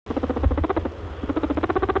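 Rabbit honking: a fast train of short pitched grunts, about a dozen a second, in two runs with a brief pause between them.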